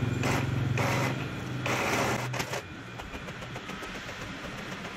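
Epson L3110 inkjet printer printing: the print head carriage shuttles in repeated passes over a steady motor hum as pages feed out. The hum drops away about two and a half seconds in, leaving quieter mechanical clicking and whirring.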